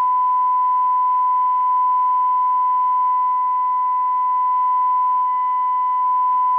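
Steady 1 kHz test tone with a faint hiss, the signal generator's modulation coming out of a Maxcom 4E FM CB radio's speaker while its detector coil is tuned for maximum audio.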